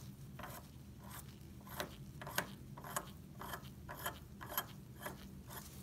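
Metal barrel of a Bunsen burner being screwed counterclockwise by gloved fingers: a string of faint, irregular clicks and scrapes from its threads, about two a second. The turning raises the barrel and opens the air vent.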